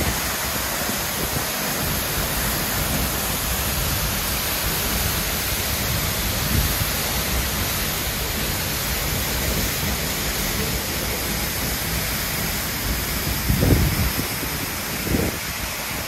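Waterfall heard up close from behind the falling water: a steady, loud rushing hiss of the curtain and its spray crashing into the plunge pool, with two brief low rumbles near the end.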